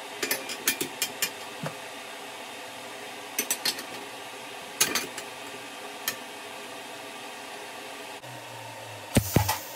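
Sharp metallic clinks and taps as a square-tube steel jig bar is handled against the stainless-steel tubes of an exhaust manifold on its welding fixture, over steady workshop noise. A low hum comes in near the end, followed by a quick cluster of louder knocks.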